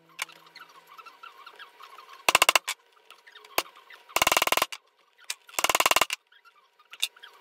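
Leather pricking iron struck with a wooden mallet, punching stitch holes through the woven leather panel: three short runs of quick, light taps, with a few single taps between.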